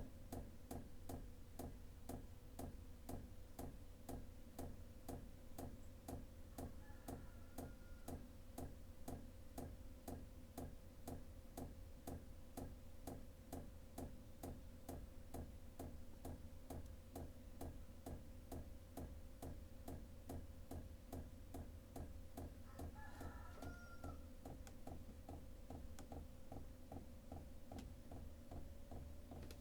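Sunster diesel air heater's fuel dosing pump ticking steadily, about two clicks a second, as it pumps fuel during its first start-up, over the steady whine of its fan.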